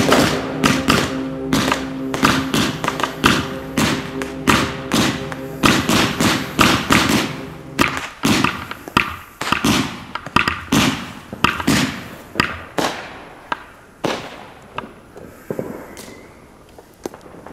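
Fireworks going off: a rapid string of sharp bangs, dense at first, then thinning out and growing quieter over the last several seconds.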